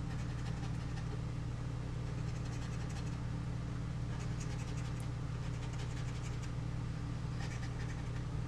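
Scratching the coating off a scratch-off lottery ticket, in several short spells of light scraping strokes, over a steady low hum.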